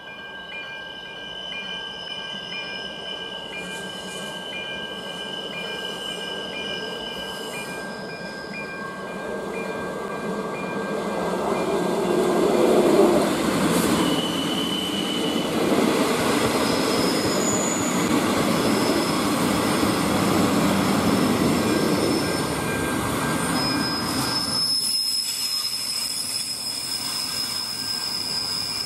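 ČD class 814 diesel railcars approaching and rolling past, their engines and wheels on the rails building up to a loud rumble about halfway through. A level crossing warning bell rings with steady tones at first, and the wheels give a steady high-pitched squeal near the end.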